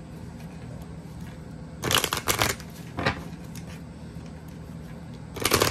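A deck of tarot cards shuffled by hand: a burst of cards rattling against each other about two seconds in, a single tap about a second later, and another burst near the end.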